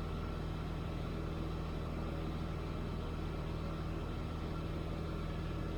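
Piper Cherokee 140's four-cylinder Lycoming O-320 engine and propeller droning steadily in cruise flight, heard from inside the cabin.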